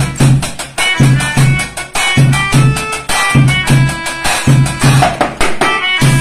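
A melodica playing a tune in held reedy notes over a steady drum beat, roughly two hits a second, with some lighter percussion on a homemade kit of drums and cymbal.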